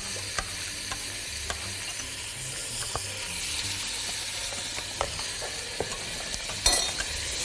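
Metal spoon clinking against a glass measuring jug every second or so as starch is stirred into water, over a steady sizzle of food frying in the pot. A louder clatter comes near the end.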